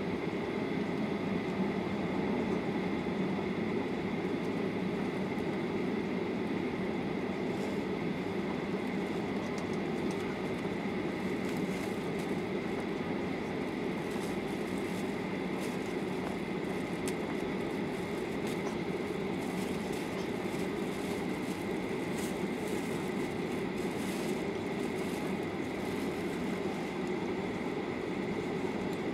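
Steady cabin noise of a Boeing 737-800 taxiing with its CFM56 engines at idle: a low, even rumble with a thin, steady high whine over it and a few faint clicks midway.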